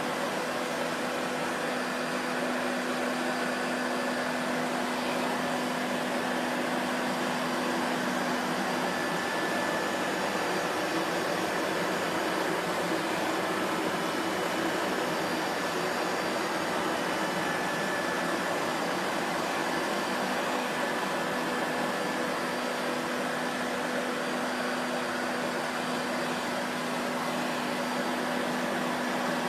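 Vacuum cleaner running continuously: a steady motor drone and rush of air that holds an even level throughout, with a faint hum under the rush.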